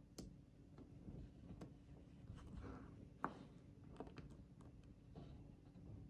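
Faint, scattered clicks of small magnetic metal balls knocking and snapping together as a hexagon of them is handled and joined to another; the sharpest click comes about three seconds in.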